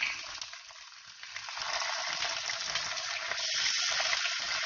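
Mussels sizzling and crackling in hot olive oil in a pot. The sizzle builds from about a second and a half in, and grows brighter and louder near the end as white wine is poured over them.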